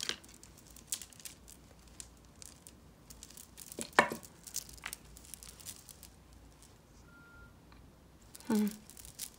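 Beaded necklaces being picked up and untangled by hand on a cloth: scattered light clicks of beads, wire and chain with soft rustling, and one sharper click about four seconds in. A short hum of the voice comes near the end.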